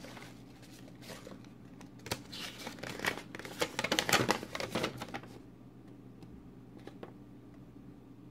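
Plastic packaging crinkling and rustling in a run of quick crackles for about four seconds, then two faint clicks. The packaging holds plastic 1 oz bar cases being unwrapped.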